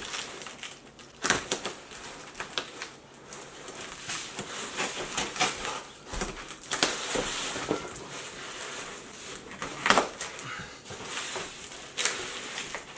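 Packing tape and cardboard being slit with a small knife: irregular scraping and rustling of the box flaps with many small clicks, and two sharper knocks, one about a second in and one near ten seconds.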